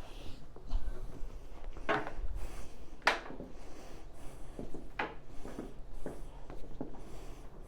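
A carpet-cleaning pad brushing across carpet in several separate swishing strokes, over a faint low hum.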